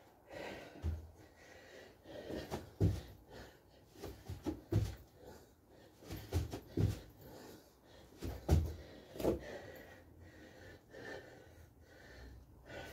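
A man's heavy breathing during a bodyweight workout of jumping jacks, kick-outs into a plank and squats, with his feet thudding on the floor at uneven intervals, roughly every one to two seconds.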